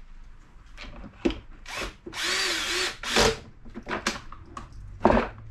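Electric screwdriver running in one short burst of under a second, with a wavering whine, while the vacuum cleaner is being screwed back together. Sharp knocks and clicks of parts being handled come before and after it.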